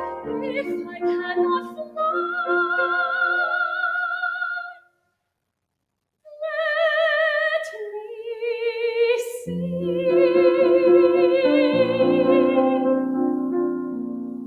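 Soprano voice singing the closing phrases of a musical-theatre song, holding high notes with a wide vibrato and sliding up into one, with piano accompaniment. Nearly two-thirds of the way through there is a total silence of about a second and a half. Then sustained piano chords come in under the final held note.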